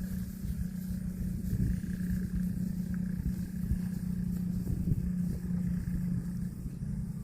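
A steady motor hum holding one pitch, over irregular low thuds and rumble; the hum stops near the end.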